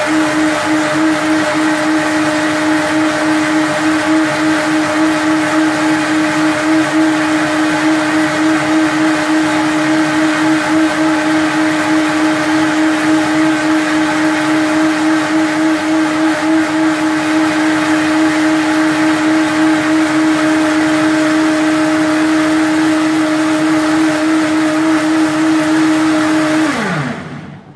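Optimum 9200A high-speed blender motor running steadily with a constant whine, blending a thick green vegetable smoothie. About a second before the end it is switched off and its pitch falls away as the blades spin down.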